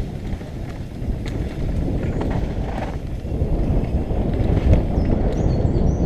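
Downhill mountain bike descending a dirt trail: a steady rumble of tyres on dirt and wind buffeting the helmet-mounted microphone, with scattered short clicks and rattles from the bike over bumps.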